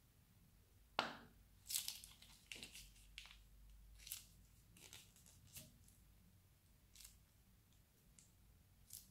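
Faint plastic piping bag crinkling and squelching as it is squeezed to pipe bead-filled slime into glue: a string of short, sharp crackles, the loudest about a second in, then a cluster just after and scattered ones to the end.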